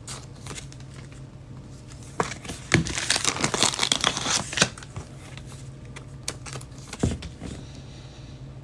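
Foil wrapper of a trading card pack crinkling and tearing as the pack is opened, mostly between about two and five seconds in, with a sharp click near the end.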